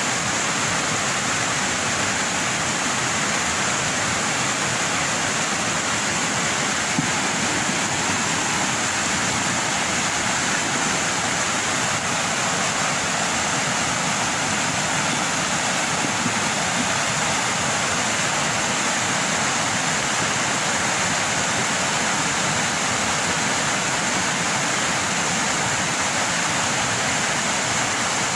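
Steady rushing of water, even and unbroken throughout.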